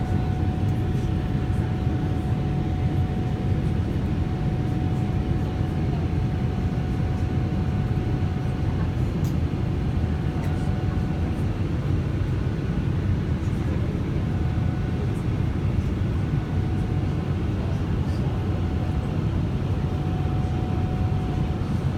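Steady low rumble of a Boeing 777-300ER's GE90 jet engines and airflow as heard inside the passenger cabin. A faint, steady whine fades in and out over it.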